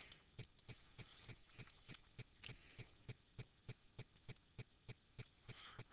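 Faint, quick clicks and taps of a stylus on a tablet screen while handwriting numbers, a few clicks a second.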